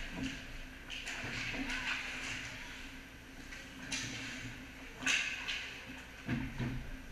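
Hockey practice on an indoor ice rink: skate blades scraping and hissing on the ice, with a couple of sharp stick-on-puck clacks about four and five seconds in, echoing in the big arena over a steady low hum.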